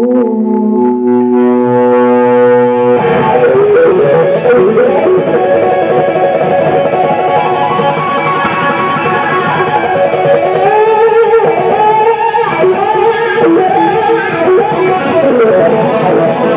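Live rock band: a held chord rings steadily for about three seconds, then the full band comes in under an overdriven Firebird-style electric guitar playing a lead solo with bent, sliding notes.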